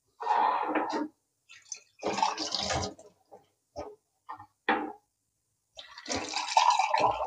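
Water from a kitchen sink tap splashing onto dishes in three bursts as they are washed by hand, the last burst the longest. A few short clinks of crockery fall in between.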